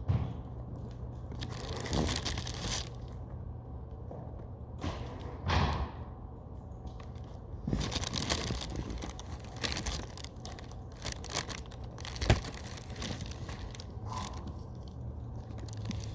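Scissors cutting into a foam squishy: irregular crunchy snips and handling rustle, with a sharp click about twelve seconds in.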